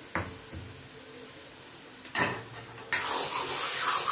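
A metal spatula knocks against a large metal kadhai a couple of times. From about three seconds in, it scrapes and stirs thick, nearly dry carrot halwa in the hot pan steadily.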